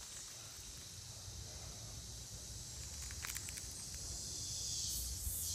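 A steady high hiss of insects that grows louder near the end, with a few faint clicks about three seconds in and a low rumble underneath.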